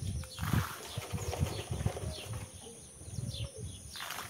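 A handful of fish-feed pellets pattering onto the lake surface after being thrown out to draw the fish, with short bird chirps in the background.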